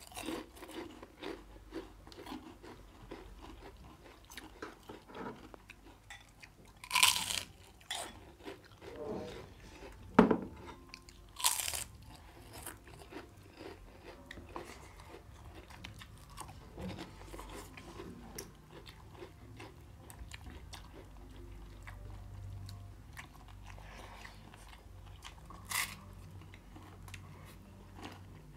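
Close-miked eating: chewing and crisp bites into fried papad, with a few louder crunches about 7, 10 and 11 seconds in and again near the end, over soft smacking of food and fingers.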